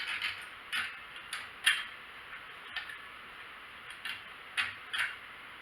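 Light, irregular clicks and taps of small metal hardware being handled while a fan is fitted to an ASIC miner, about nine in all, the sharpest a little under two seconds in.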